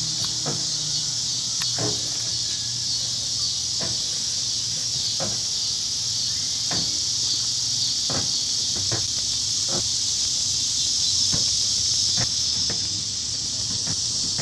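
Microwave oven running with a MacBook Pro laptop inside: a steady low hum under a steady high hiss, with sharp clicks every second or so.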